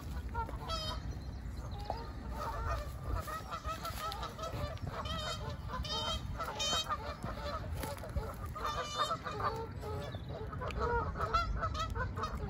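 Geese honking over and over in short calls, with a few higher, sharper bird calls among them and a steady low rumble beneath.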